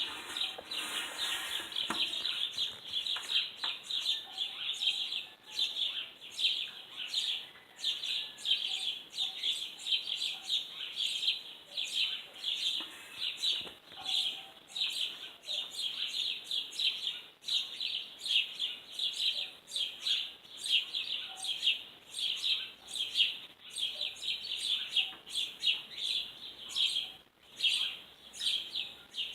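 A songbird chirping: short runs of high, rapid chirps repeating about once a second, broken by a brief pause near the end.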